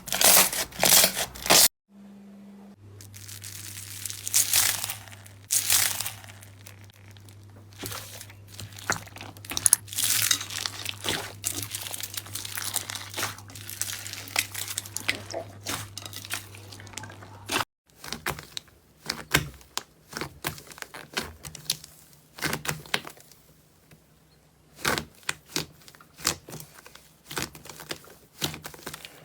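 Slime being squished, pressed and stretched by hand, giving rapid crinkling, crackling and tearing sounds in several clips joined by abrupt cuts. A low steady hum runs under the middle clip.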